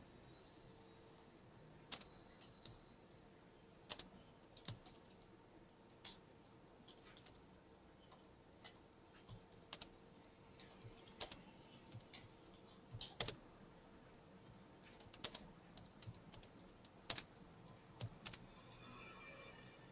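Computer keyboard keystrokes, sparse and irregular, a single key press every second or two, coming more often in the second half.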